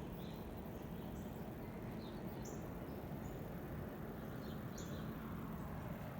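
A small bird chirping: short high single chirps, about eight of them, at irregular intervals over a steady outdoor background hiss.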